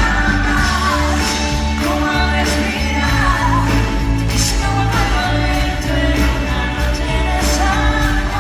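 Live pop-rock band playing a song, with singing over electric guitar, bass and drums.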